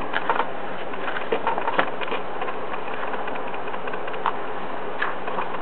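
Pages of a softcover booklet being turned and handled: scattered light rustles and clicks over a steady background hiss.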